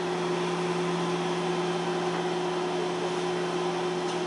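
Inside a Seoul Subway Line 5 train car rolling along a station platform: a steady running noise with a constant low hum and no change in pitch.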